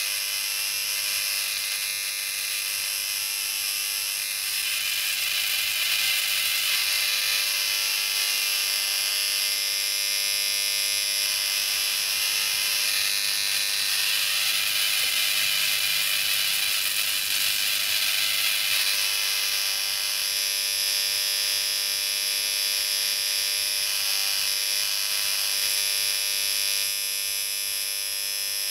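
High-voltage discharge arcing through magnesium shavings between two electrodes: a steady, high-pitched electrical buzz with a hiss over it, hissier in the middle part.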